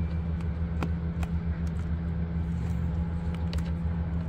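Steady low hum throughout, with two sharp clicks about a second in and a few faint ticks later as plastic wiring-harness clips are pressed into the back of a car door panel.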